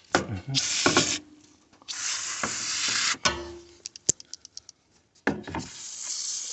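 Aerosol can of foaming AC coil cleaner spraying in three hissing bursts. Between the second and third bursts comes a quick run of rattling clicks, the mixing ball as the can is shaken.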